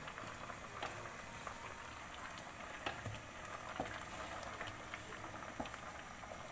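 Chopped carrots boiling in water in a kadhai, a faint steady bubbling with a few scattered small pops.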